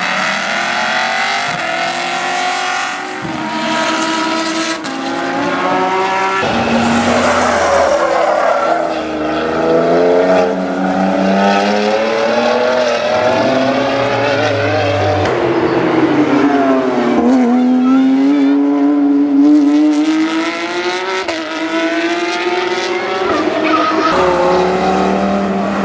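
Several fast cars lapping a race circuit one after another, their engines revving up and down through gear changes as they pass.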